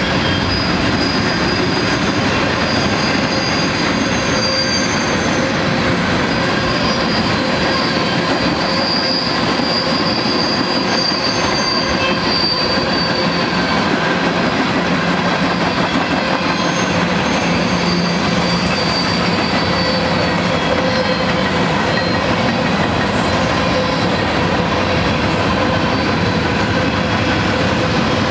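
Freight train cars (tank cars, covered hoppers and autoracks) rolling steadily past on the rails, with high-pitched wheel squeal coming and going.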